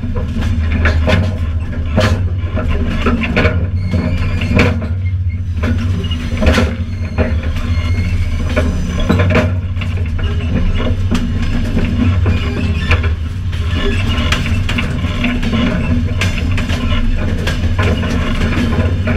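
Railcar wheelset rolling on the rails, heard from under the car: a loud, steady heavy rumble with irregular sharp knocks and clanks from the wheels and running gear.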